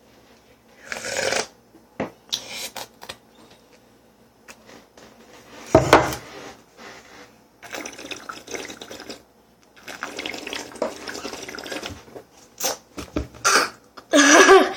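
A sippy cup of apple juice being handled: a string of short liquid splashing and sloshing sounds, with a few light clicks between them.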